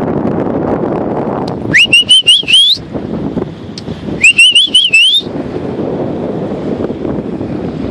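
A person whistling loudly, two short calls about two seconds apart, each a quick rising note followed by a warbling run that climbs at the end, over steady wind noise on the microphone. The whistles are a recall call to the dogs.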